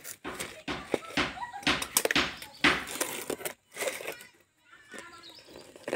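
Cardboard box and packing tape being torn open by hand: a quick run of sharp tearing and crinkling noises, quieter after about three and a half seconds.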